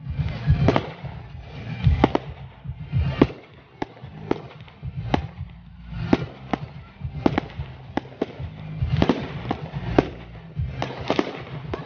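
Fireworks display: aerial shells bursting in a rapid, irregular series of sharp bangs, some with a crackling tail.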